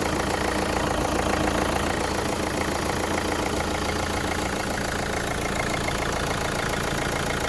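Opel Astra J 1.7 CDTI four-cylinder turbodiesel idling steadily, with a fast, even clatter over the engine note. This is the strange noise the owner is asking about, cause unknown.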